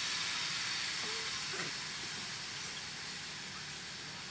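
Forest ambience: a steady, even high hiss, with a faint short chirp about a second in.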